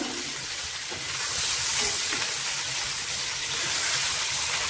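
Marinated chicken pieces sizzling as they shallow-fry in coconut oil in a nonstick pan, turned over with a spoon. The hiss grows louder about a second in.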